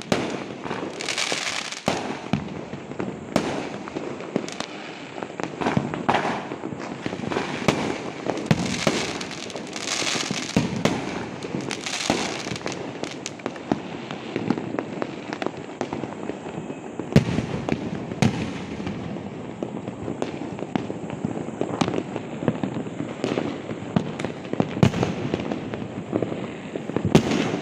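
Firecrackers and fireworks going off on all sides: a near-continuous run of sharp bangs and pops over a crackling background, with several longer hissing bursts of crackle in the first half.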